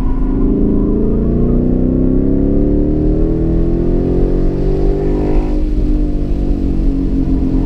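The 2015 Mustang GT's 5.0-litre V8, heard from inside the cabin, pulling hard with its pitch rising steadily for about five seconds. Then the revs drop and the pitch falls off near the end.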